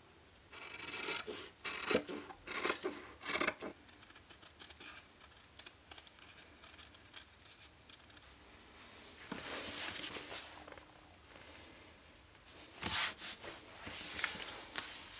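Scissors snipping through waxed canvas in a run of short cuts, then the cut canvas pieces rubbing and sliding over a worktop as they are handled.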